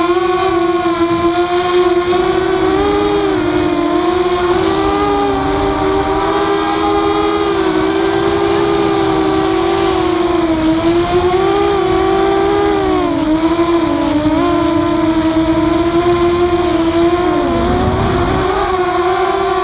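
Walkera F210 quadcopter's brushless motors and propellers running in flight, a steady buzzing whine whose pitch wavers up and down with throttle changes, dipping briefly near the end.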